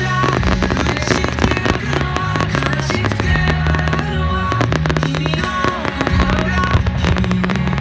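Fireworks bursting and crackling in dense, rapid succession over background music with held bass notes.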